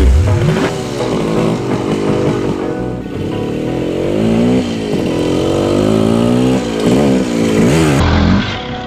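Honda MT250 Elsinore's two-stroke single-cylinder engine being ridden. Its pitch climbs and drops back several times as it accelerates and is shifted through the gears.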